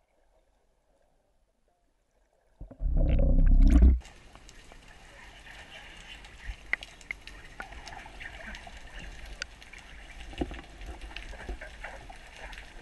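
Near silence, then a loud low rumbling burst of water noise about three seconds in lasting a second or so, followed by steady underwater hiss with scattered clicks and crackles, heard through a camera's underwater housing.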